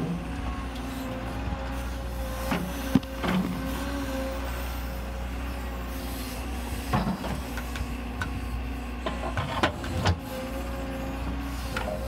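Cat 314 tracked excavator digging in rocky ground: its diesel engine runs steadily under a wavering hydraulic whine, with several clunks of the bucket and rocks, the sharpest about three seconds in and more around seven and ten seconds.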